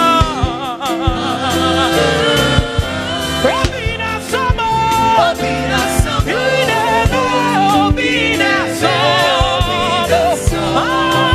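Live gospel music: a singer's drawn-out, wavering vocal runs with no clear words, over a band with held keyboard and bass notes and a steady drum beat.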